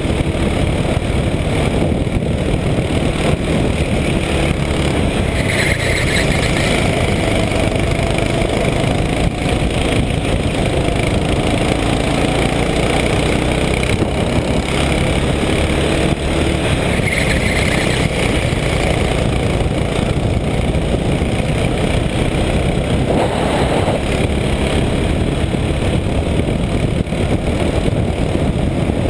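Racing go-kart engine at speed, picked up by an onboard camera, with heavy wind rush on the microphone. The engine note rises and falls faintly as the kart goes through the corners.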